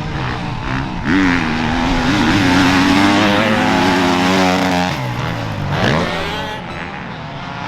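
Motocross engines revving hard, their pitch climbing and then dropping sharply and recovering about a second in and again near six seconds, as on gear changes or throttle chops over the track.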